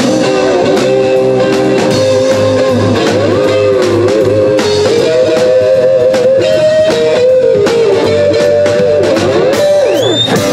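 Live rock'n'roll band: an electric guitar plays a lead line with string bends over bass and drums, ending on a quick upward slide.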